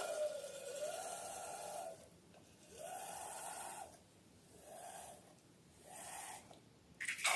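Air squealing out of a stretched balloon neck in four breathy bursts, each a wavering whine with hiss. The first is the longest, dipping then rising in pitch, and the bursts grow shorter. A sharp click comes near the end.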